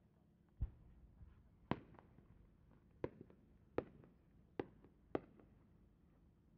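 Fireworks shell climbing on its rising tail with small attached effects: about six separate sharp pops, roughly a second apart, the first a lower thump, faint and distant.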